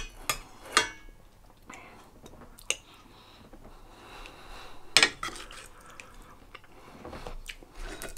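A metal spoon clinking against a dish a few times while eating, in short sharp knocks, the loudest at the very start, just under a second in and about five seconds in, some with a brief metallic ring.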